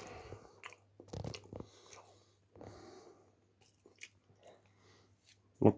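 A person chewing a spoonful of blended wild-plant mash mixed with oats and mayonnaise, with soft wet mouth sounds and scattered small clicks.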